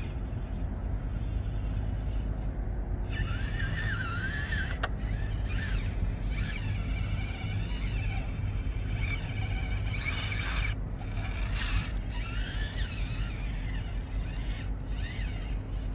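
Small electric motor and gears of a 1:18-scale RC mini crawler whining in stop-start bursts as it is driven, the pitch wavering with the throttle, over a steady low rumble.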